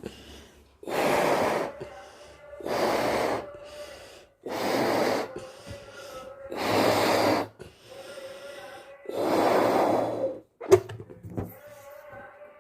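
A balloon being blown up by mouth: five long, breathy puffs about two seconds apart, then a single sharp, loud balloon pop about a second after the last puff.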